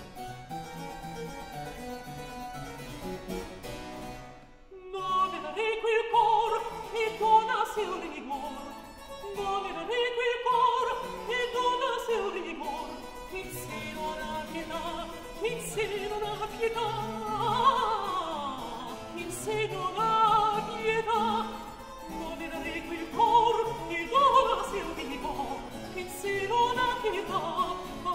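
Harpsichord playing alone, a brief break, then about five seconds in a countertenor begins singing a Baroque opera aria over the harpsichord accompaniment.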